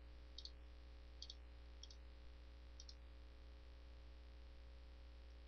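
Faint computer mouse clicks, four quick press-and-release pairs in the first three seconds, over a steady low hum.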